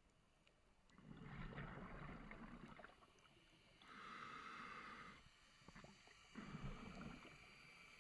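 Scuba diver breathing through a regulator underwater: rumbling bursts of exhaled bubbles alternate with the higher hiss of the regulator on each inhale, about one breath every three to four seconds.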